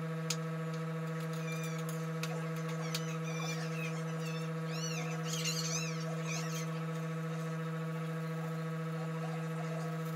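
A steady low hum with evenly spaced overtones, unchanging throughout, with a few faint high chirps around the middle.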